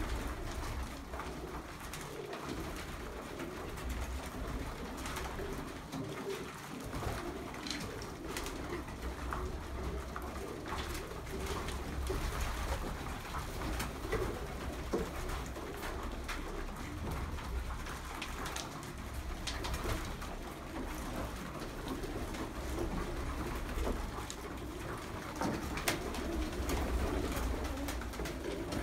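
A flock of Murzyn domestic pigeons cooing steadily, with occasional short wing flaps.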